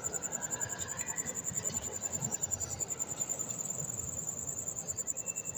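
Steady, rapidly pulsing high-pitched trill, like an insect chirring, with faint clinks and scrapes of a roller timing chain being handled on the cam sprockets.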